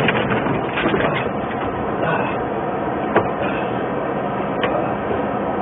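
Truck cab interior noise while driving: a steady engine and road rumble, with a couple of sharp clicks or rattles in the second half.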